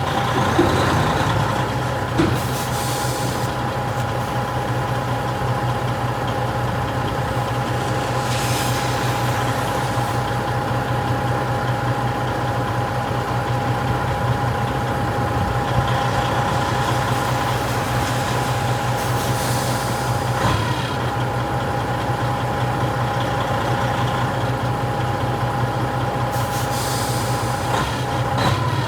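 Tractor-trailer's diesel engine running steadily at low speed while the truck is maneuvered, with four short air hisses spaced several seconds apart, typical of the air brakes being applied and released.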